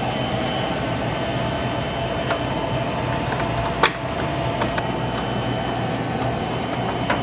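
Steady background mechanical hum, with a few light clicks and one sharper click about four seconds in as a metal shield plate is set back over a computer's motherboard.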